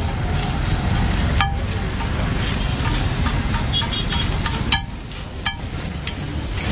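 Steady low rumble of passing road traffic, with a few sharp metal clacks of a spatula on the griddle.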